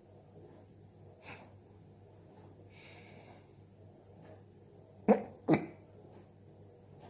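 A person hiccuping: two short, sharp hiccups about half a second apart, a little past halfway, after a soft breath. They are part of a persistent bout of hiccups that will not stop.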